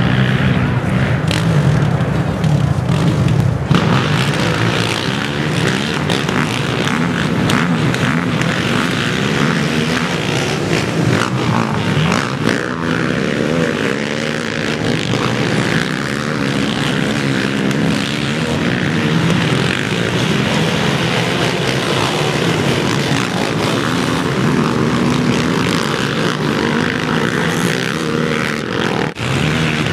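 A pack of racing ATVs (sport quads) running at once, many engines overlapping and their pitch rising and falling as riders accelerate and let off. The sound changes abruptly about four seconds in.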